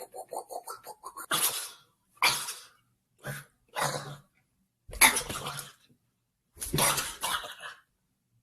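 A man making silly noises with his mouth and voice. First comes a quick run of rapid pops, then six separate harsh, breathy bursts with short silences between them.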